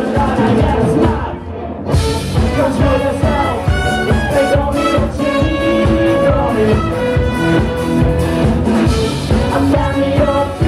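Live band playing: electric guitars, bass, drums and trumpet, with singing over a steady beat. The band drops back briefly about a second and a half in, then the full band comes back in.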